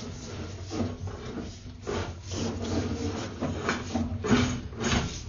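Push cable of a sewer inspection camera being fed by hand into a cleanout, rubbing and scraping in uneven strokes.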